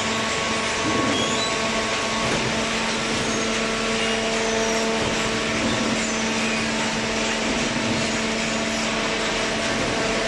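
Paper baler machine running: a steady mechanical hum with several held tones over an even hiss, unchanging throughout.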